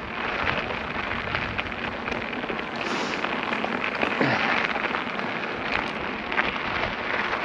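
Tyres of a Specialized Turbo Levo e-mountain bike rolling and crunching over a gravel 4WD track on a climb: a steady rough crackle full of small clicks and rattles.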